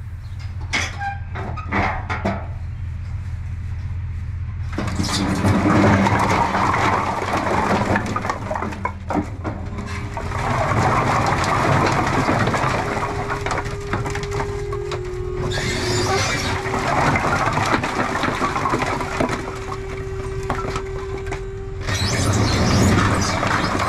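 A heavy load of split firewood sliding and clattering out of a tipping dump trailer, starting about five seconds in. Under it runs the steady hum of the trailer's battery-powered hydraulic pump raising the bed.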